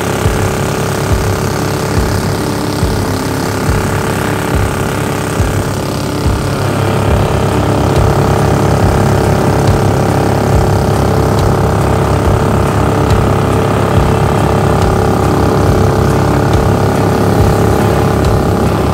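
Predator 420cc single-cylinder four-stroke engine driving a Mud-Skipper surface-drive mud motor, running steadily under load as it pushes a jon boat, getting a little louder about seven seconds in.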